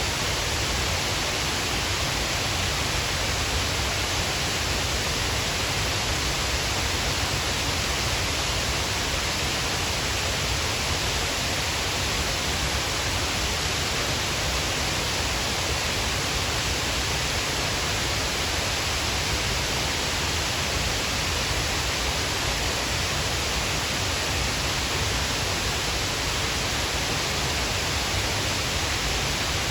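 Steady, unbroken rush of falling water from Shiraito Falls, a wide curtain waterfall of many thin streams pouring over a cliff.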